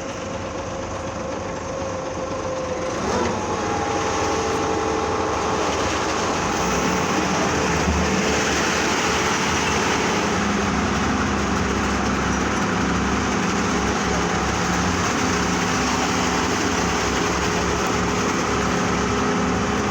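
Construction machinery engine running steadily at a pile-foundation concrete pour, its pitch shifting and getting a little louder about three seconds in.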